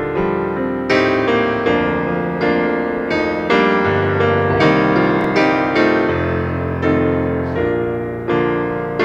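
Piano playing the instrumental introduction to a worship song, before the voices come in. Chords are struck roughly once a second, each fading before the next, over sustained bass notes.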